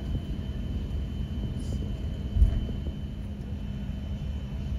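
Steady low rumble and hum inside the cabin of an Airbus A350-900 as it is pushed back, with a single dull thump a little over two seconds in.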